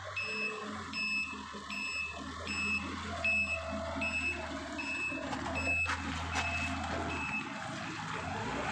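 Wheel loader's reversing alarm beeping at an even pace, about three beeps every two seconds, over the low drone of its diesel engine; the beeping stops near the end. A single clank sounds about six seconds in.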